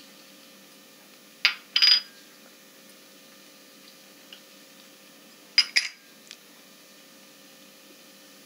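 Small glass spice bowls clinking sharply as spices are tipped into the pan: a pair of clinks about a second and a half in, and another pair near six seconds in. A faint steady hum runs underneath.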